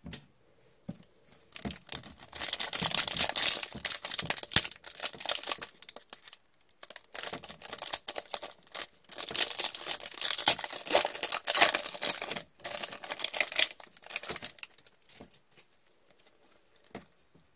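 Foil trading-card pack wrapper crinkling and tearing as it is opened with gloved hands, in two long stretches of dense crackling that die down to a few small rustles near the end.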